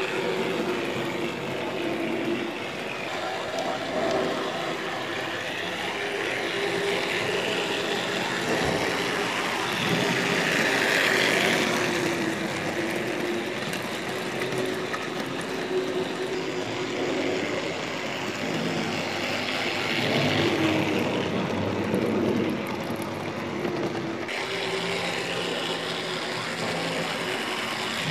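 Tri-ang TC Dock Shunter model locomotive running on its track, a steady small electric motor hum with the rattle of its plastic wagons and wheels over the rails, swelling slightly now and then as the train comes nearer.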